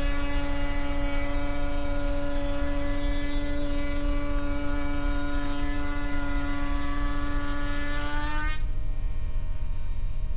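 Table-mounted router spinning a lock miter bit and cutting along the edge of a quartersawn white oak board fed past it, a steady high whine over a low rumble: the first of two passes. About eight and a half seconds in the whine cuts off as the board clears the bit, leaving a steady low rumble.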